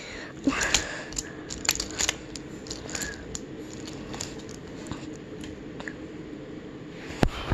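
Wooden toy trains being handled on wooden track: scattered light clicks and knocks as the cars and engine are picked up and set down, with a louder knock near the end.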